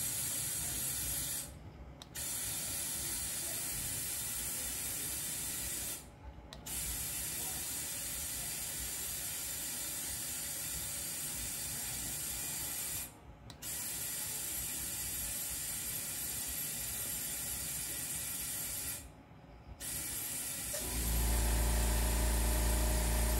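Compressed air hissing into a minivan tire through an inflator chuck while it is pumped up to 40 psi. The hiss comes in long stretches, stopping four times briefly for pressure checks. Near the end a low motor hum starts.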